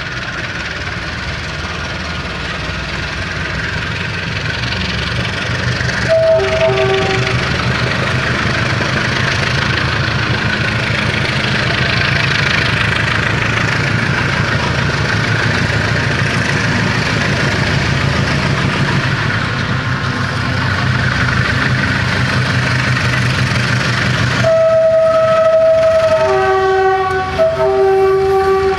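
Diesel locomotive approaching with its engine running, growing louder. Its horn gives a short call with two notes about six seconds in, then a long blast near the end followed by a few more short notes.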